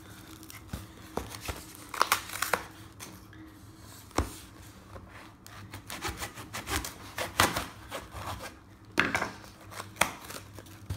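A knife blade slicing and scraping through packing tape and cardboard on a tightly wrapped parcel, with tape tearing and cardboard crinkling as the flaps are pulled apart, in irregular strokes.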